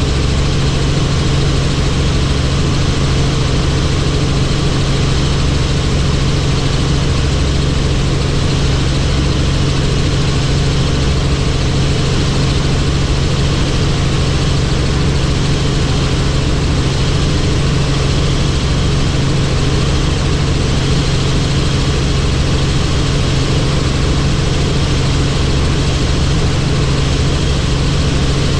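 Helicopter in flight: loud, steady engine and rotor noise with a strong low hum that does not change.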